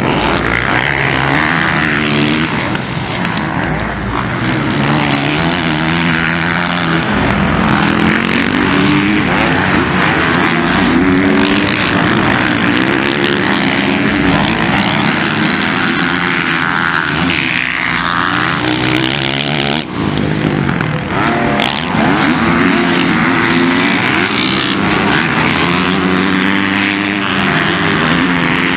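Motocross bike engines revving hard and dropping off again and again as the riders accelerate out of corners, take jumps and brake, the pitch rising and falling every second or two.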